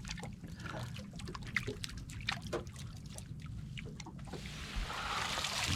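Water trickling and dripping with scattered small ticks, then a louder stream of water from about four seconds in, as a cast net is drawn up out of the water.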